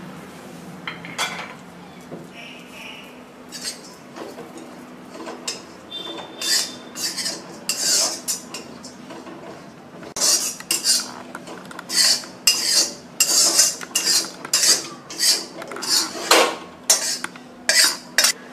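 Metal spatula scraping and knocking against an iron kadhai as grated cashew is stirred in it. A few scattered knocks come first, then quick repeated strokes, about two a second, that grow louder in the second half.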